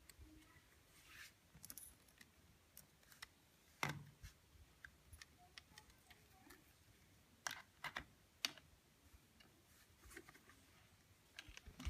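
Faint handling noise with scattered sharp clicks and taps: a USB cable being picked up and its plug pushed into a TP-Link power bank.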